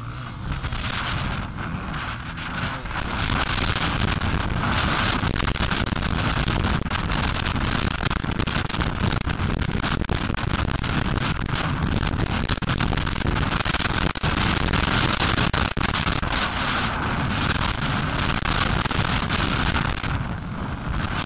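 Suzuki RM250 two-stroke motocross bike ridden around the track, its engine running under heavy wind buffeting on the onboard microphone, with frequent knocks and jolts over the bumps. It grows louder about three seconds in.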